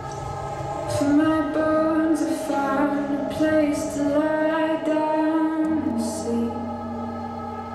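Slow song with a woman singing a held melody over sustained accompaniment, the voice coming in about a second in.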